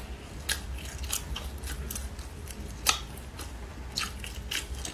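Crispy shredded potato pancake crunching and crackling as it is bitten, chewed and broken apart: a string of irregular sharp crackles, the loudest just before the three-second mark.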